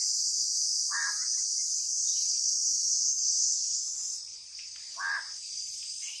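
Steady high-pitched buzzing chorus of insects, typical of crickets or cicadas, easing slightly about four seconds in. Two brief faint chirps come through, about a second in and about five seconds in.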